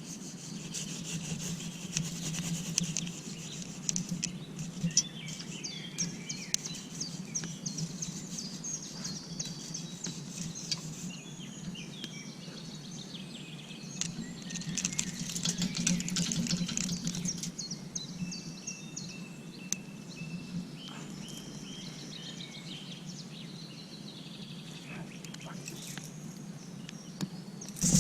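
Birds chirping and calling, with scattered light clicks and a low steady rustle underneath.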